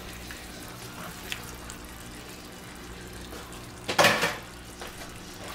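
Chicken thighs and hearts sizzling steadily in a frying pan. About four seconds in, a loud, brief burst of sizzle comes as raw chicken livers are tipped into the hot oil.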